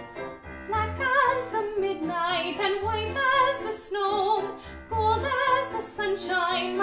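Two women singing a children's choral song with vibrato over a piano accompaniment. The voices come in about a second in.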